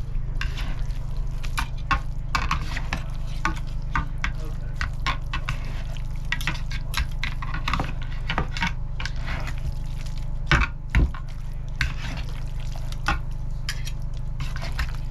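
Meat-shredding claws pulling apart a tender smoked pork butt: wet, squishing tearing with irregular scrapes and clicks of the claw tines, and two louder knocks about ten seconds in. A steady low hum runs underneath.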